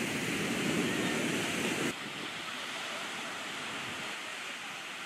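Ocean surf washing onto a sandy beach, a steady noisy roar of breaking waves. About two seconds in it drops suddenly to a quieter, steady wash of sea and wind.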